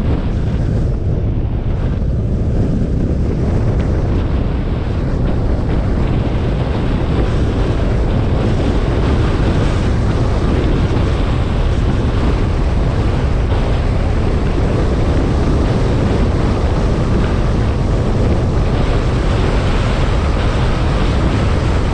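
Steady low rumble of wind buffeting the microphone and road noise from a car driving along, heaviest in the low end and filling out a little after the first few seconds.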